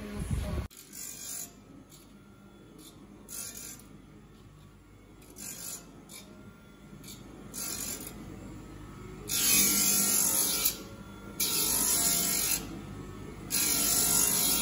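Reel mower grinder's abrasive wheel grinding the steel blades of a golf course reel mower, a hissing rasp that comes and goes in passes. The passes grow longer and louder in the second half.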